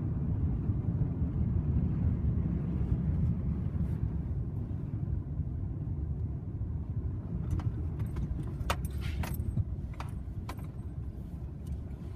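Truck cabin interior while driving: a steady low rumble of engine and road noise. About two thirds of the way through, a cluster of sharp rattles and clicks sounds in the cab as the truck goes onto a rough dirt track.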